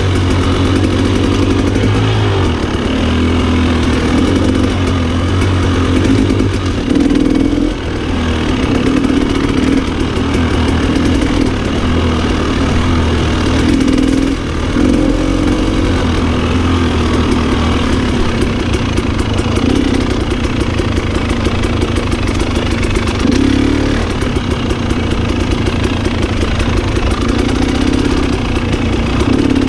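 Dirt bike engine running on a wooded trail ride, its revs shifting up and down with the throttle, with brief drops in loudness about 8 and 14 seconds in.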